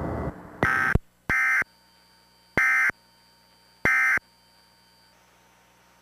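Emergency Alert System end-of-message data tones: four short, buzzy bursts of digital signalling, each about a third of a second long, spread over about three and a half seconds. They mark the end of the alert message.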